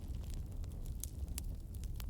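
Wood fire burning, with a steady low rumble of flames and scattered sharp pops and crackles from the logs.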